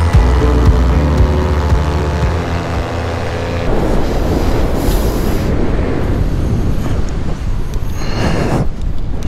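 Paramotor's backpack engine running with a steady buzz, its pitch sinking slightly, which stops about four seconds in and leaves a loud rushing noise with a couple of short swells.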